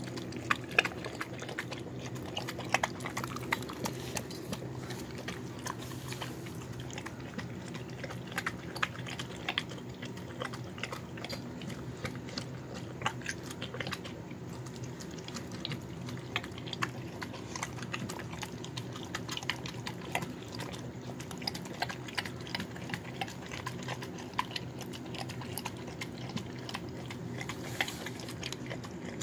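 A dog eating soft chicken, noodles, carrot and rice from a plastic bowl: continuous wet chewing, smacking and lapping with many small irregular clicks, over a steady low hum.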